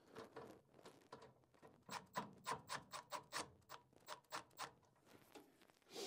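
Hand tools being handled: a clatter at the start, then a run of about a dozen light clicks, about four a second, and a knock at the end.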